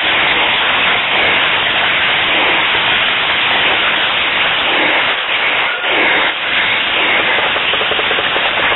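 Loud, steady rushing noise on the microphone of a camera carried through the woods, with no separate knocks or tones standing out.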